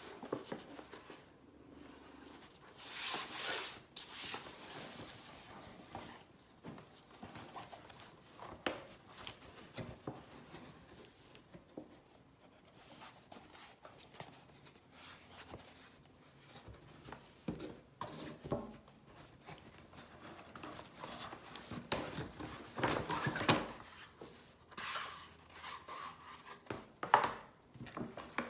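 Hands handling cardboard gift boxes and paper packaging: a fabric-covered box lid sliding off, card and paper rubbing and rustling, with soft knocks and a sharp click near the end.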